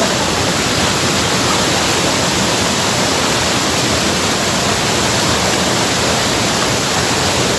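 Waterfall whitewater rushing, a loud, steady, even rush of water.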